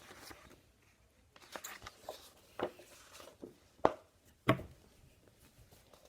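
Handling noises: light rustling and several short sharp knocks, the loudest two about four and four and a half seconds in, as a picture book is picked up and opened.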